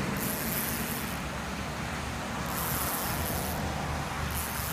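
Steady rain noise with a low rumble underneath. A higher hiss swells and fades three times, about a second each.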